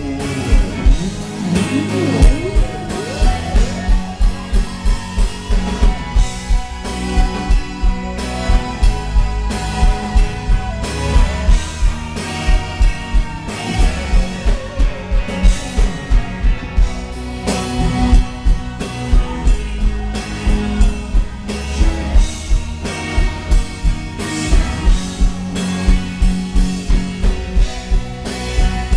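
Live rock band playing: electric guitars over a drum kit keeping a steady beat of about two hits a second, with a woman singing lead.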